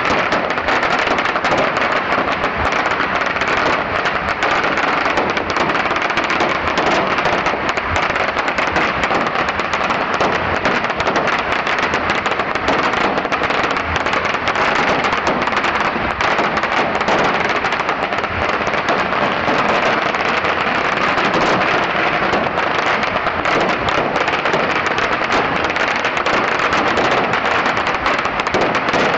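A pagara, a very long string of red firecrackers, going off in a dense, unbroken crackle of bangs at a steady level throughout.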